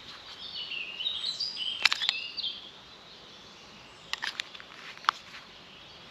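A songbird sings a quick warbling phrase of chirps over the first couple of seconds. Sharp plastic clicks and taps from a small knife being handled in its polypropylene belt sheath come about two seconds in and again around four to five seconds.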